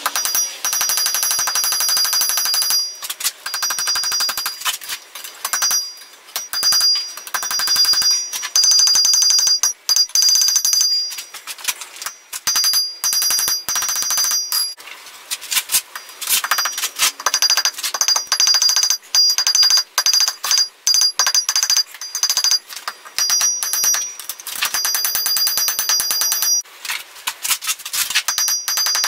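A hand hammer striking hot square stock on a steel anvil in flurries of rapid blows, the anvil giving a high ringing with each flurry, broken by short pauses as the bar is turned and bent into a hook.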